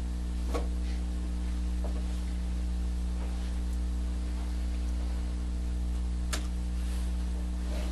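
Steady electrical mains hum, with two faint clicks, one about half a second in and one about six seconds in.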